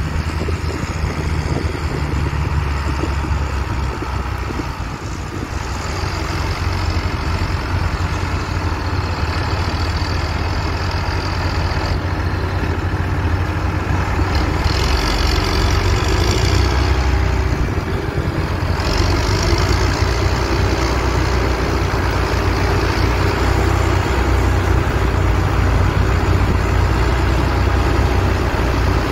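Heavy tractor diesel engines running steadily under load, with a band of hiss from the working machinery rising and falling over the top.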